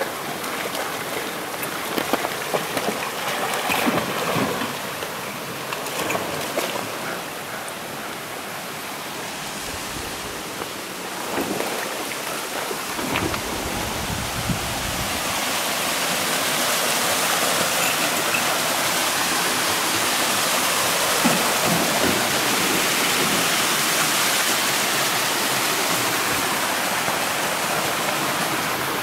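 River water rushing over rocks. In the first seconds there are irregular splashes as a dog wades through the shallows. From about halfway the rush of a small waterfall cascade becomes steadier and louder.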